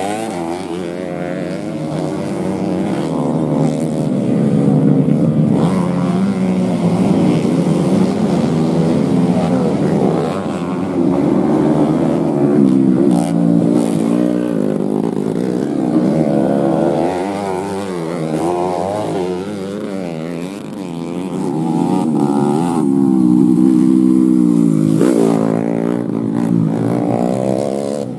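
Grasstrack racing motorcycles with standard-class underbone (bebek) engines revving hard and easing off through the corners. The pitch climbs and drops over and over, and more than one bike is heard at once.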